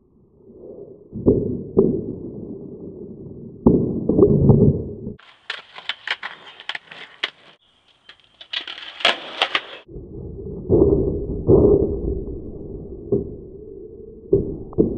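Skateboard wheels rolling on concrete, broken by sharp clacks of the board popping and landing. In the middle comes a few seconds of hissier sound with quick clicks, then more rolling and several clacks near the end as the board strikes the metal coping of a small ramp.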